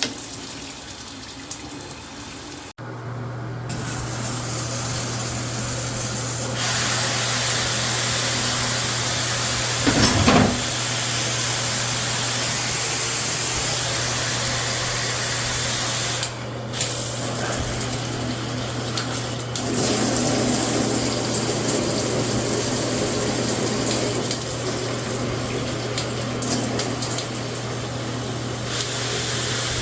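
Shower head spraying water steadily, with a steady low hum under the spray. The spray changes character abruptly a few times.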